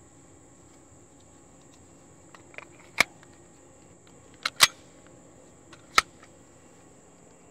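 Sharp metallic clacks of a Trailblazer Pivot 9mm folding rifle being readied to fire by hand: three loud clacks about a second and a half apart with a few softer clicks among them. A steady high-pitched insect drone runs underneath.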